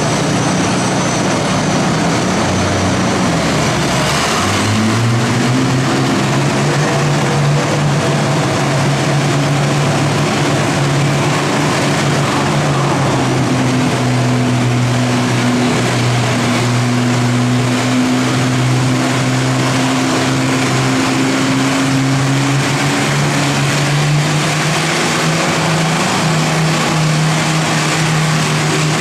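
Antique Massey-Harris tractor engine pulling a weight sled under load. It revs up about four seconds in, then holds a steady, loud drone with small dips in pitch.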